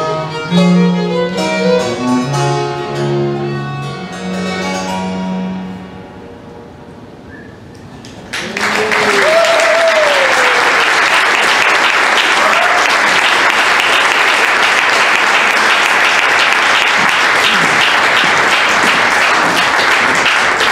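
A baroque chamber ensemble, violin with plucked continuo, plays the closing bars of a piece, the last chord dying away about six seconds in. After a brief lull, audience applause breaks out suddenly about eight seconds in and continues steadily, with a couple of shouts from the crowd near its start.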